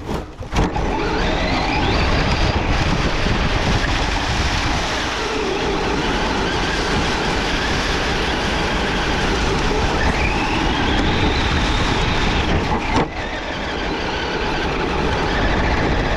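Electric motor of an RC truck whining as it drives, with a steady rattle and rumble from the chassis and tyres running over dry leaves, close to the onboard microphone. The whine climbs in pitch and holds about two-thirds of the way through, then drops, with a short break a few seconds before the end.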